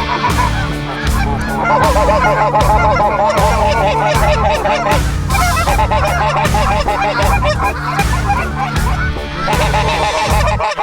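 A flock of Canada geese honking, many overlapping calls repeated continuously as the flock comes in.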